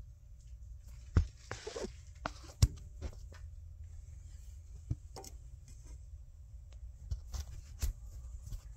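Hand tools clinking and knocking as a ratchet with a long extension is worked up to a bolt under the car. The clicks and knocks are irregular, with sharp ones about a second in and near three seconds, and they sit over a low steady rumble.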